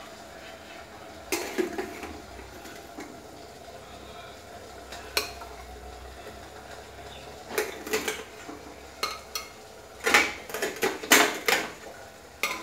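Metal utensil clinking and scraping against a stainless steel steamer as steamed rolls are lifted out; a few scattered knocks at first, then a quick cluster of clatters in the last few seconds.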